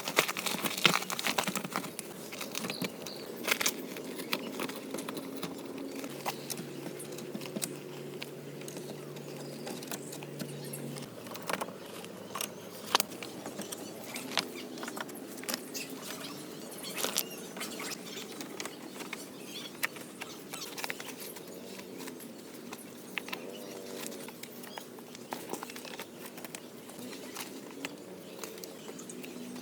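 Irregular light taps and clicks, scattered and uneven, over a steady hiss.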